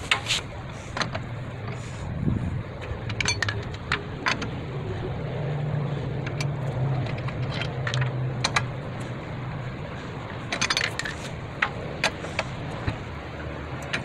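Scattered metallic clicks and clinks of a lug wrench and lug nuts as the nuts are worked off a car wheel. A low steady hum runs underneath, strongest in the middle.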